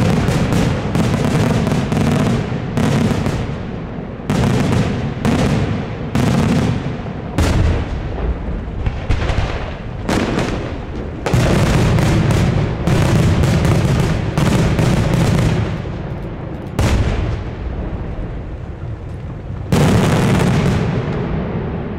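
Daytime fireworks display: aerial shells bursting overhead in a rapid, nearly continuous barrage of loud bangs. The bangs come in waves, with the densest volleys starting about eleven seconds in and again near the end.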